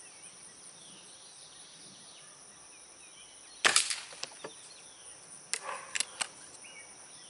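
Air rifle handled between shots: one loud, sharp clack a little past halfway, then three lighter clicks about two seconds later. Crickets chirp steadily underneath.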